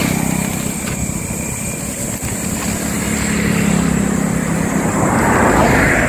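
Motor vehicle engine running steadily by the road, growing louder about five seconds in as a vehicle comes closer.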